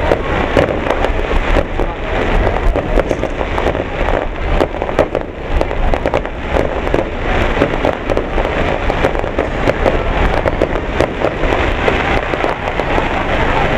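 Fireworks finale barrage: many aerial shells bursting in quick succession, a dense, unbroken crackle over a continuous low rumble of booms.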